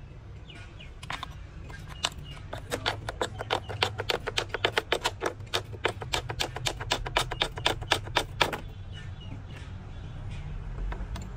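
A fast, even series of sharp knocks, about five a second, starting about two seconds in and stopping suddenly some six seconds later, over a steady low machine hum.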